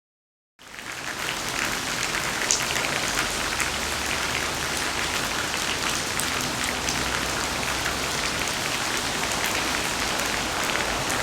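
Steady rain falling, with many separate drops ticking against a surface. It starts suddenly about half a second in, after silence.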